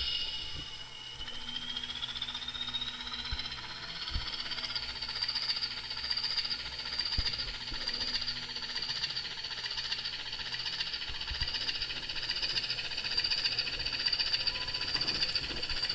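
Sud Express CP 1400 model diesel locomotive running: a thin high whine rises in pitch over the first few seconds, then holds steady with a slight waver, with a few faint clicks.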